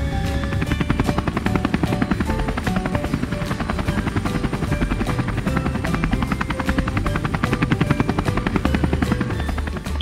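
Helicopter rotor sound effect, a fast steady chopping, laid over background music.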